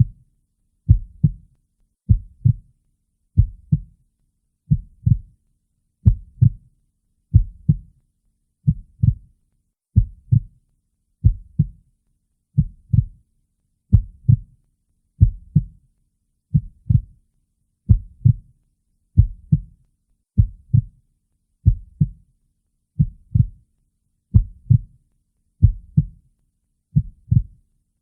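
Heartbeat: a steady, slow double beat (lub-dub) of low thuds, repeating about every 1.3 seconds, around 45 beats a minute.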